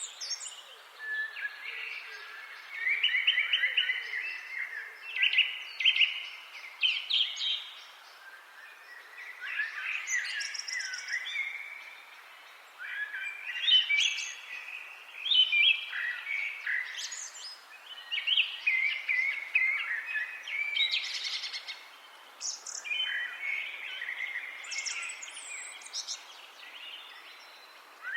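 Songbirds singing: short, fast song phrases of about two seconds each, repeated every few seconds and sometimes overlapping, over a faint background hiss.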